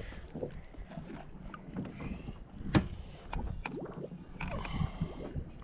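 Water sloshing and splashing as a snook is held in the water over the side of a boat, with wind on the microphone and scattered small knocks. One sharp knock a little under three seconds in is the loudest sound.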